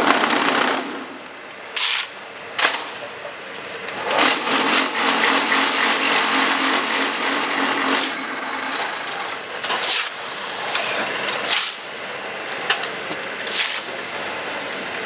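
QTJ4-26A semi-automatic concrete block forming machine working through a cycle: sharp metallic knocks, then a dense mechanical rattle with a steady low hum for about four to five seconds from about four seconds in, then more knocks near the end.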